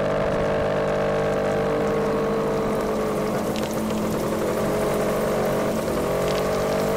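Small scooter engine running steadily under way. Its pitch sags slightly about five seconds in and picks back up.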